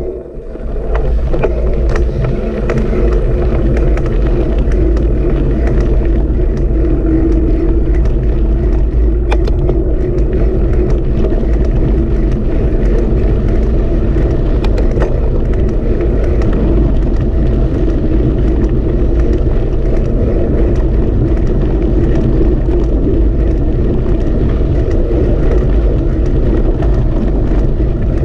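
A vehicle's engine running at a steady speed, a constant low drone with no change in pitch.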